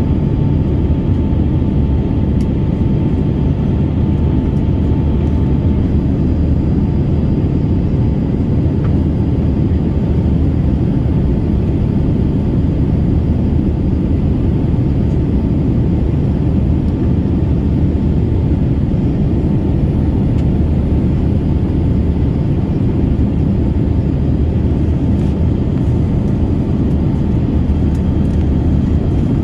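Steady drone of an airliner heard from inside the passenger cabin: engine and airflow noise, deep and unbroken, with a faint steady hum above it.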